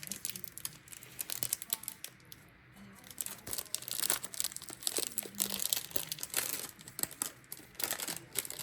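A small jewelry bag being handled and pulled open, a run of quick, irregular crackles with a brief lull about two seconds in.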